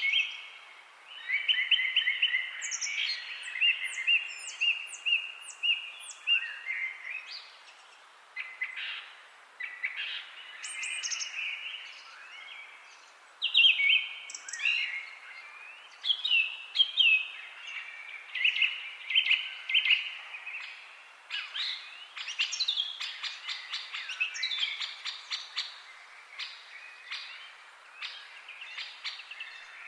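Several songbirds singing and chirping together, a near-continuous chorus of short chirps, trills and high whistled notes over a faint steady background hiss.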